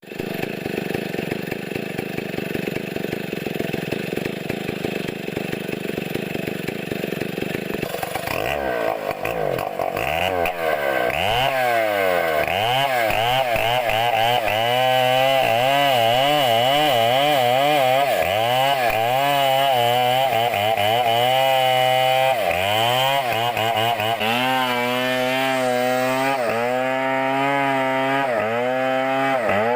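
Two-stroke chainsaw running loud: an even, rough noise for the first eight seconds or so, then the engine note repeatedly rising and falling as the throttle is worked.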